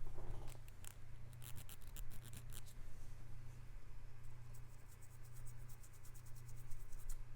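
Earbud cleaning pen scratching in an earbud's speaker screen and ports, in two runs of rapid, dry little strokes, over a steady low hum.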